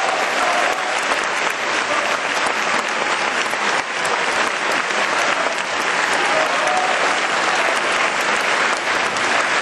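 Theatre audience applauding steadily and loudly after a ballet number, the music's last held note dying away just as the clapping takes over.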